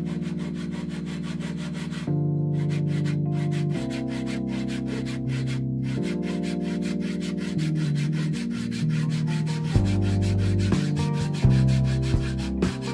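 A fine-toothed hand saw cutting into a small block of dark hardwood in quick, even strokes, over background music with held chords.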